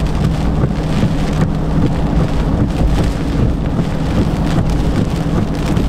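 Hurricane rain and wind on a moving car, heard from inside the cabin, over a steady low drone of engine and tyres on the wet road.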